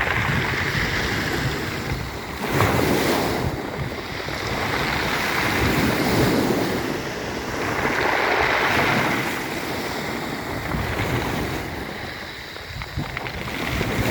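Sea waves breaking on a pebble beach and drawing back, the pebbles clattering and rolling in the backwash. The noise swells and ebbs every few seconds.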